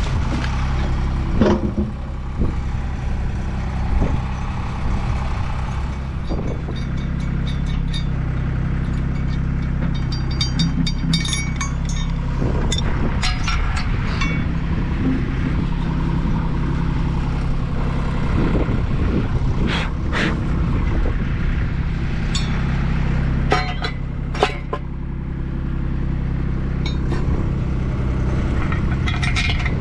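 Steel mounting brackets, bolts and nuts clinking and knocking now and then as a solar-panel rack is assembled by hand, over a steady low rumble.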